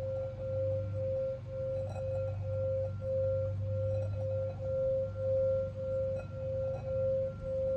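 Crystal singing bowl sung by rubbing its rim with a wand: one steady ringing tone near 528 Hz with a fainter high overtone, swelling and fading in a regular pulse.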